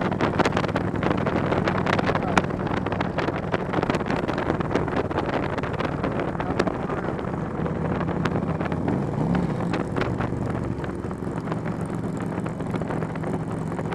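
Touring motorcycle engine running steadily at freeway speed, heard from the rider's seat, with heavy wind buffeting on the microphone. The engine note changes pitch briefly about nine seconds in.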